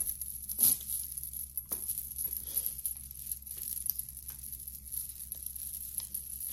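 Costume jewelry being handled: scattered light clicks and clinks of metal and beads, the sharpest a little over half a second in, with some crinkling.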